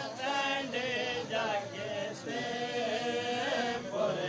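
Male voice chanting a Punjabi noha, a Shia lament for the martyrs of Karbala, in held, wavering notes.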